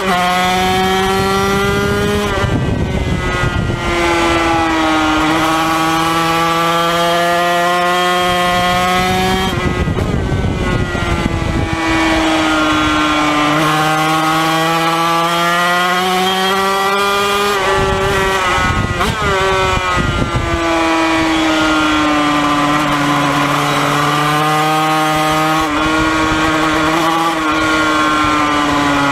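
Yamaha TZ250 two-stroke twin racing engine at high revs, heard onboard: the pitch climbs repeatedly through the gears and drops as the throttle closes for corners, with wind noise.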